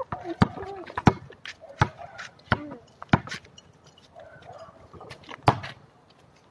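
Basketball being dribbled on a concrete court, bouncing about once every two-thirds of a second, then a single louder thump about five and a half seconds in.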